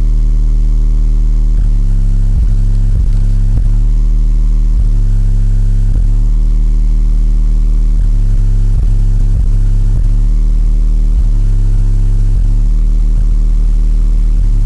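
Two 12-inch Ground Zero subwoofers in a car playing bass-heavy music very loud, deep bass notes that shift in a repeating pattern. The bass runs without dropping out, now that the subwoofers are wired to 4 ohms instead of 1 ohm.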